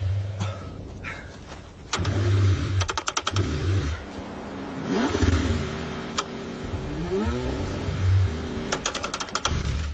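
Car engine being cranked in freezing cold and struggling to start: several separate bursts of cranking with rapid clicking twice, about three seconds in and near the end.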